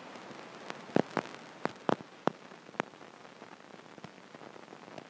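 A stylus tapping and knocking on an iPad's glass screen while writing by hand: about six sharp clicks between one and three seconds in, over a steady microphone hiss.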